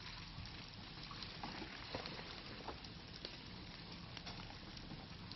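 Steady rushing water noise, with a faint low steady engine hum from a small SUV crawling over rocks and a few light scattered clicks.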